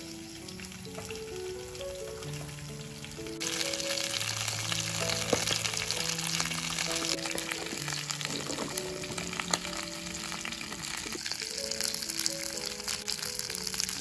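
Food sizzling in hot oil, the sizzle starting suddenly about three seconds in and running on steadily, with a few light clicks, over gentle background music.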